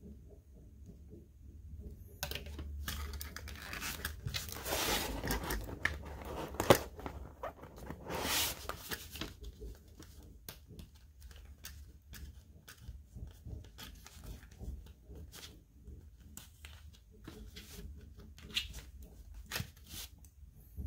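Hands handling small plastic toy accessories and their packaging: two longer rustling, tearing swishes about four and eight seconds in, then scattered small clicks and taps of plastic parts.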